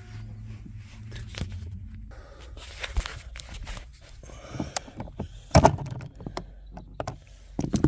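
Hand tools and plastic centre-console trim being handled inside a car: scattered clicks, rattles and knocks, with two louder knocks about five and a half and seven and a half seconds in.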